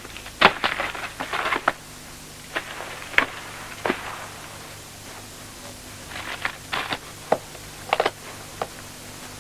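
Irregular light knocks, clicks and rustles of books and papers being handled on a wooden desk, loudest in a cluster during the first two seconds, over a faint steady hum.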